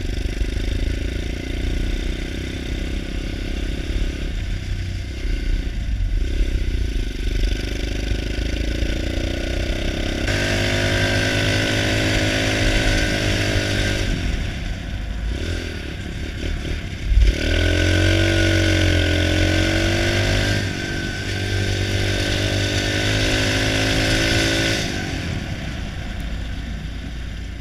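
Pit bike engine running under load while riding, revving up and easing off in several stretches, its pitch rising and falling, over steady road and wind noise. A single sharp knock comes about two-thirds of the way through.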